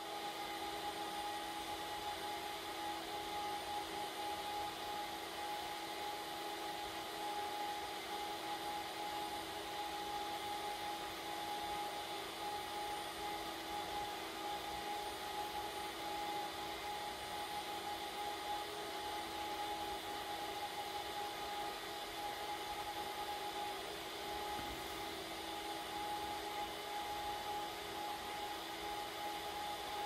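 HPE ProLiant DL380 Gen9 server's cooling fans running loud during the power-on self-test: a steady whirring with several steady whining tones over it, which quietens once the self-test finishes.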